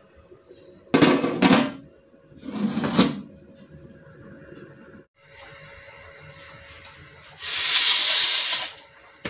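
Aluminium pot lid clattering twice as it is set on a large aluminium cooking pot, then scraping as it settles. Near the end, a loud burst of hissing noise lasting about a second.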